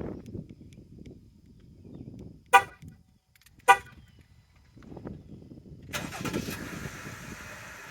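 Two short car-horn chirps a little over a second apart, then about three seconds later a Jeep Grand Cherokee's engine starts and keeps running.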